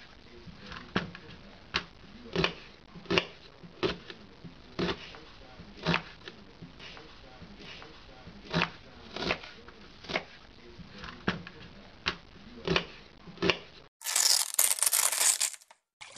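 Kitchen knife chopping red onion and carrots on a wooden chopping board, a sharp knock roughly every second. Near the end comes a loud burst of hissing noise lasting about two seconds.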